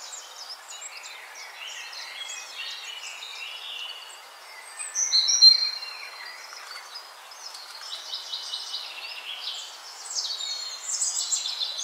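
Birds chirping and twittering, several small birds calling quickly over one another in high chirps and short whistles, with one louder clear whistle about five seconds in.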